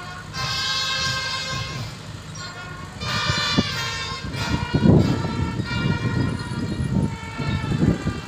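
A horn-like tone sounds in long, steady, unwavering blasts, twice for about a second and a half each, with fainter repeats later. Irregular low thumps and rumble run beneath.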